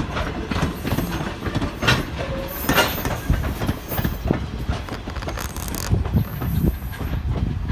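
Railroad cars rolling past, their wheels clacking over rail joints at irregular intervals, with faint high wheel squeal now and then. Wind buffets the microphone with a heavy rumble.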